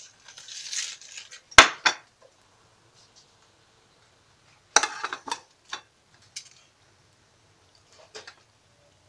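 Kitchen dishes clattering: after some soft scraping, a china plate with a metal spoon in it is set down on a stone counter with a sharp clack about one and a half seconds in. Around five seconds in come a few clinks and knocks from a metal tray as a raw whole chicken is moved about on it.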